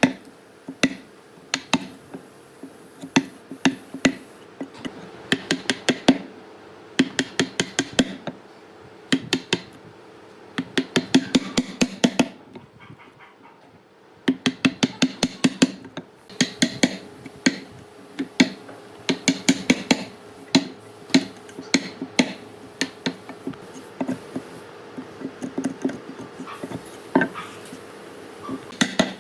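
Hammering on wood in quick runs of several blows at a time, with short pauses between runs and a brief lull about halfway through, over a faint steady hum.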